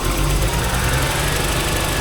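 Nissan Skyline R32's RB20DET turbocharged 2.0-litre straight-six idling just after being started, a steady low hum that comes up right at the start. The engine is still misfiring on one cylinder, running on five of six, which the owner later traces to an injector harness connector whose ground pin had come out.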